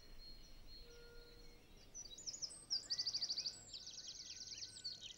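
Soft sustained music notes fade out in the first second or two; then songbirds sing, with fast trills of repeated high notes and short rising chirps.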